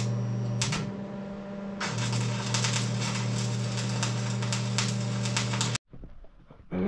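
Stick welder arc crackling and sizzling over a steady electrical buzz while a patch is welded onto a manure spreader. The crackle eases briefly about a second in, comes back strong, then cuts off suddenly near the end as the arc is broken.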